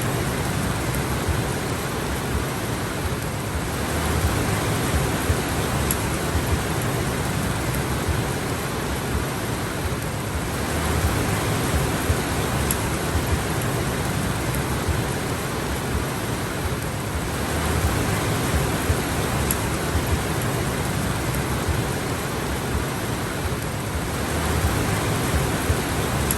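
Steady rain: a dense, even hiss that swells gently every six or seven seconds.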